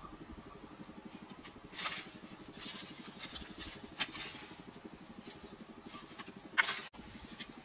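Dry charred sticks and brush rustling and cracking as they are stepped on, picked up and tossed aside, with a few sharp cracks standing out. Under it runs a steady, fast low hum.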